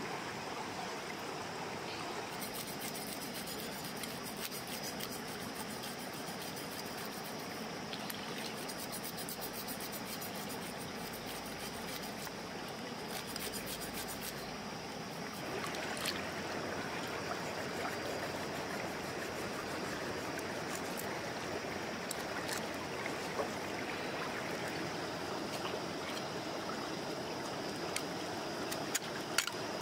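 River water flowing steadily over rocks. From a couple of seconds in until about halfway, a knife scrapes scales off a fish in rapid strokes, with a few single clicks and taps in the second half.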